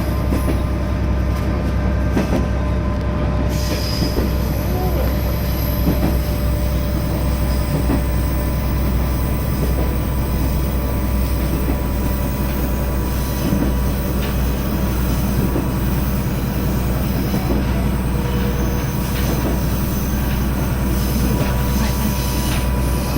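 Koumi Line railcar running along the track, heard from inside behind the driver's cab: a steady low rumble of engine and wheels with thin, steady whining tones above it.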